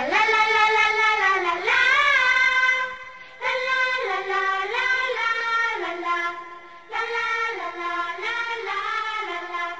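A high voice singing a slow, melodic song in held, wavering notes, in phrases broken by short pauses about three seconds in and again near seven seconds.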